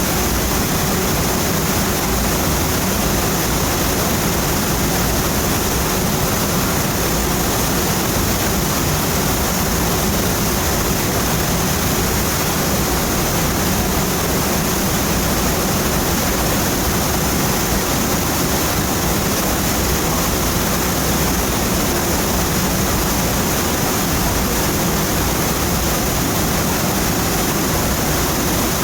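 Waterfall rushing with a steady, unbroken sound.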